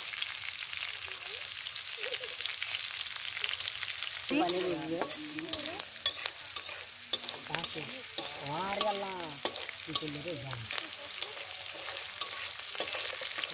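Whole spices, bay leaves and green and dried red chillies sizzling and crackling in hot oil in a large aluminium karahi: the spice tempering of a mango pickle. A metal spatula stirs and scrapes the pan with frequent sharp clicks.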